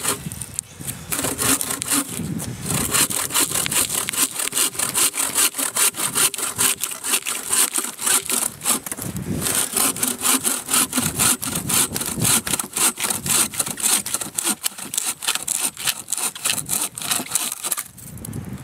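Bow saw cutting through a dead log with quick, steady back-and-forth strokes. The sawing stops near the end, once the section is cut through.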